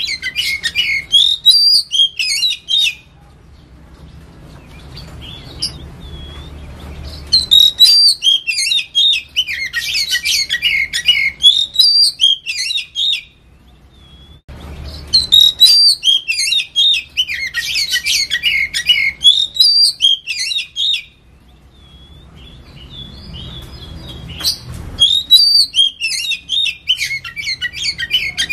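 Oriental magpie-robin (kacer) singing a loud, fast, varied song of rich whistles and chattering notes, delivered in bursts of several seconds with short pauses between them. A low background rumble fills the pauses.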